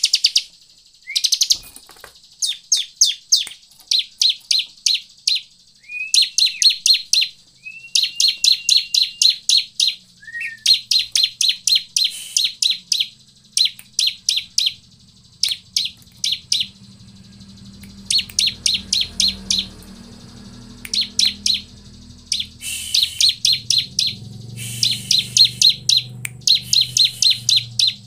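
Bar-winged prinia (ciblek) singing: short, quick phrases of sharp, high chirps, repeated nearly every second, some opened by a short lower rising note. A low hum comes in about ten seconds in and grows louder in the second half.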